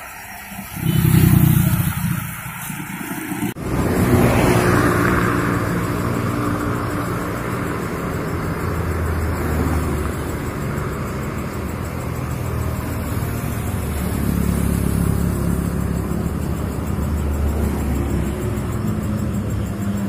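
Road traffic crossing a bridge: one vehicle passes loudly about a second in, then after a sudden break a steady rumble of engines and tyres as more cars come over.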